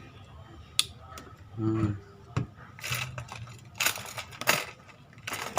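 Small hard parts and tools being handled on a workbench during a camera teardown: a sharp click about a second in, then several short scraping rattles.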